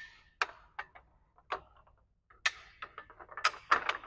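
Irregular sharp clicks and knocks from a metal awning leg being adjusted to height, several spread out and a louder quick cluster near the end.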